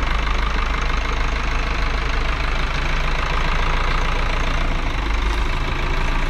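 Forklift engine idling steadily while it holds a truck-mounted crane in place.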